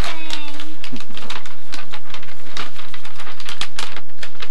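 Wrapping paper crinkling and tearing as a large present is unwrapped: a run of quick, irregular crackles and rips.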